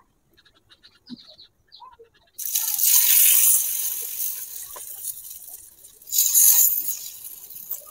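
Vegetable pancake batter spooned into hot oil in a miniature frying pan, sizzling. A loud sizzle starts suddenly about two and a half seconds in and fades, and a second spoonful sets off another about six seconds in. Before the first, a spoon clicks faintly in the bowl.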